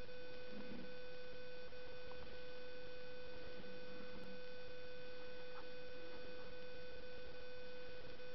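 A steady electrical whine: one mid-pitched tone with several fainter higher tones held level throughout.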